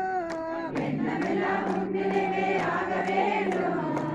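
Group of devotees singing a Tamil devotional song together, with hand claps keeping time. A single voice leads, and about a second in the whole group joins on a long held line.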